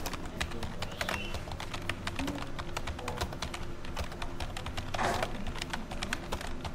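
Typing on computer keyboards: many quick key clicks in rapid, irregular succession.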